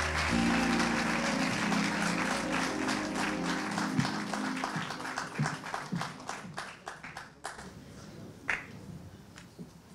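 Audience applauding as the last notes of the song's music fade out about halfway through; the clapping thins and dies away towards the end.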